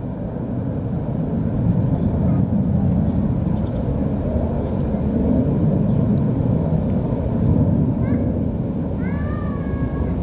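Low, uneven rumbling background noise that swells and eases. Near the end come a few short high chirps, then one pitched call that rises and then holds.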